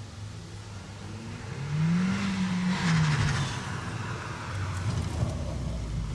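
A car passing by: its engine note rises, then falls away as the noise of it swells and fades, over a steady low hum.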